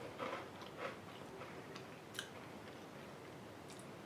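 A person chewing a crunchy snack, a few faint, scattered crunches.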